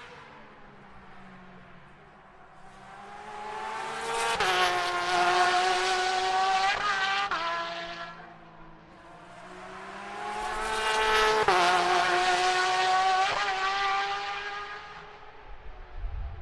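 Two GT Le Mans race cars passing at speed one after the other. Each engine note swells up and fades away over about six seconds, and its pitch steps abruptly a few times during each pass.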